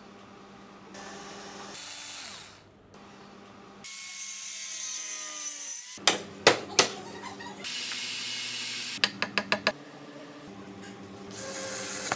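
A string of short hand- and power-tool sounds on a wooden table build: a tool whirring and falling in pitch, then three loud hammer blows on plywood. After that comes a steady running sound, a quick run of five taps, and near the end a cordless screwdriver driving a screw into a metal drawer slide.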